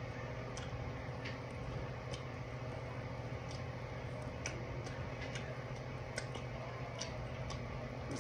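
Mouth sounds of someone eating sauced chicken wings close to the microphone: scattered sharp lip smacks and clicks at irregular moments. A steady low hum runs underneath.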